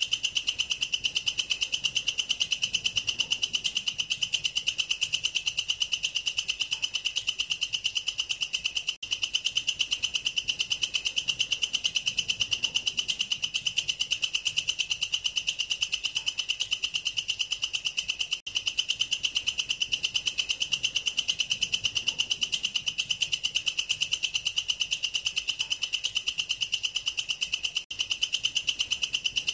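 Katydid (belalang kerek, a tettigoniid bush cricket) stridulating: a loud, shrill, rapidly pulsed continuous song, broken by a brief gap about every nine seconds.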